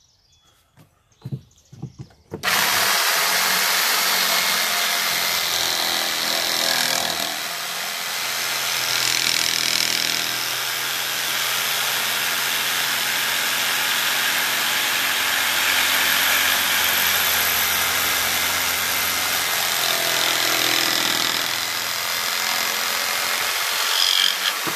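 Hyper Tough corded jigsaw cutting through a wooden board. It starts abruptly about two seconds in and runs steadily through the cut, with small dips in level.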